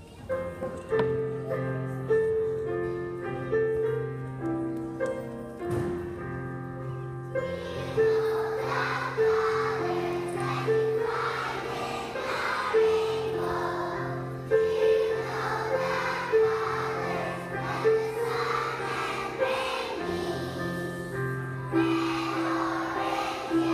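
Young children's choir singing with instrumental accompaniment. The accompaniment plays alone as an introduction, and the many children's voices come in about seven or eight seconds in.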